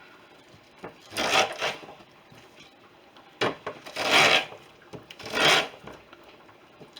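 Ears of corn pushed along the blades of a Lee's Corn Cutter and Creamer, stripping the kernels off the cob in a few separate rasping strokes.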